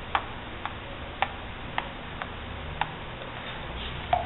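Sharp wooden taps of a paint-loaded brush being struck to flick acrylic paint onto a canvas, seven in all, roughly every half second and slightly irregular. The last tap, near the end, is a little louder.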